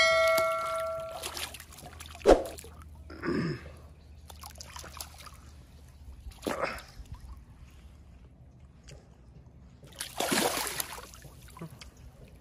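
Water splashing as boal catfish tied on a cord thrash and are dragged through shallow, muddy water at the bank: a sharp splash about two seconds in, smaller splashes, and a longer burst of splashing near the end. A short ringing tone fades out at the very start.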